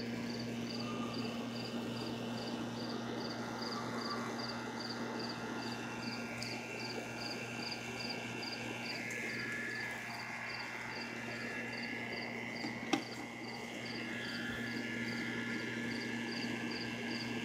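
Aeroponic bucket cloner running: the submersible pump hums steadily while the 360-degree spinner sprayer mists water around the inside of the bucket. A high chirp repeats about three times a second over it, and there is one sharp click about thirteen seconds in.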